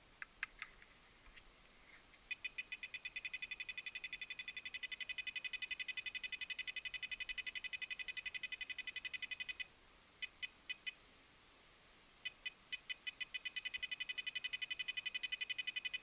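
Handheld satellite finder beeping, its beeps starting slowly and speeding up into a rapid run, breaking off, giving four short beeps, then building up fast again: the beep rate follows the signal strength as the dish is swung onto and off the satellite. A few clicks near the start.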